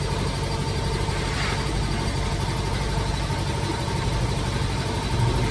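Engine idling steadily: an even low rumble with a thin steady whine above it.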